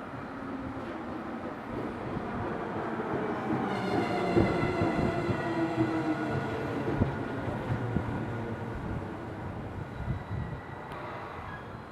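Electric train on the Tokaido Main Line passing close by, its wheels knocking over rail joints, with a whining tone from about four to seven seconds in, then fading.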